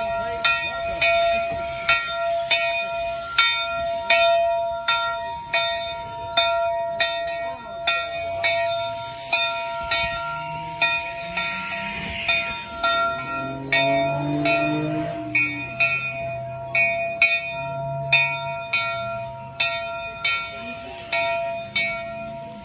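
Bell of the steam locomotive Virginia & Truckee No. 22 Inyo, ringing in a steady, even rhythm of a little over one stroke a second.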